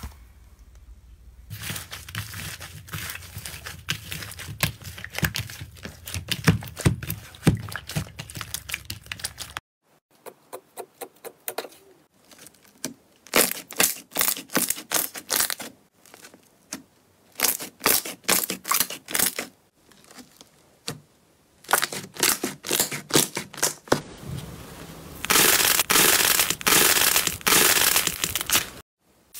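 Slime being squeezed and poked by hand, making quick trains of crackling, popping clicks. The sound changes abruptly several times, with cuts between clips.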